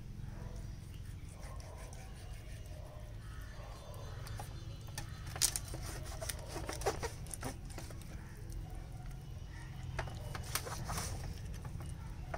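A knife slicing goat heart on a wooden cutting board, with scattered sharp taps of the blade against the board, the loudest about five seconds in, over a low steady background rumble.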